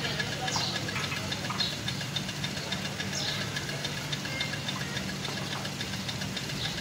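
A small engine or motor running steadily with a low hum and a fast, fine knocking tick, with a few faint squeaks over it.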